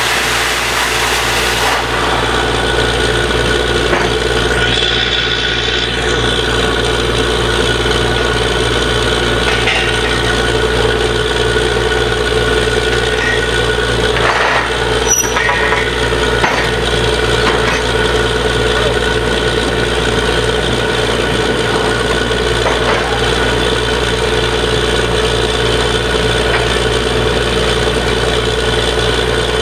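Truck-mounted borewell drilling rig's engine and machinery running steadily with a constant hum, with a few light knocks about halfway through.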